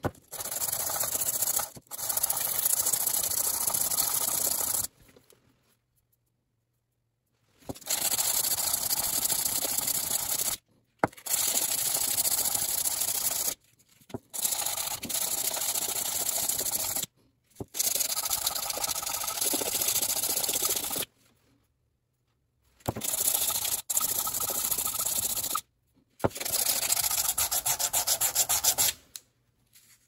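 Metal bottom sealing surface of a faucet cartridge rubbed back and forth on sandpaper, in about eight spells of two to four seconds with short pauses between them. The corroded sealing face is being polished smooth so that it seals and the faucet stops dripping.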